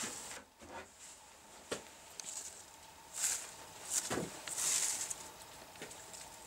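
A hand rummaging through dry leaves and dirt on the ground: scattered soft rustles and scrapes, heaviest about three to five seconds in, with a few small knocks.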